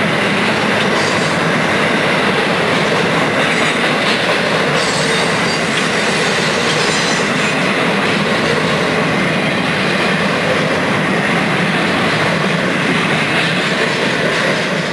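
Intermodal freight cars rolling past: a steady rumble of steel wheels on rail, with brief high wheel squeals a few times.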